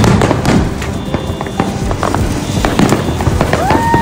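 Ground fountain firework spraying sparks: a dense crackling hiss with many sharp pops. A short tone rises and holds briefly near the end.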